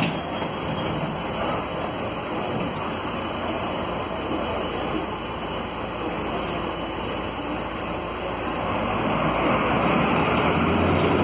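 Volvo B9SALF city bus under way, heard from a rear seat in the cabin: its Volvo D9A diesel engine running, with road noise and interior rattles. The low rumble gets louder about nine seconds in.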